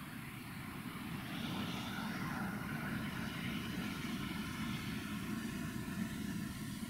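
Steady low drone of a distant engine, growing a little louder about a second in and then holding steady.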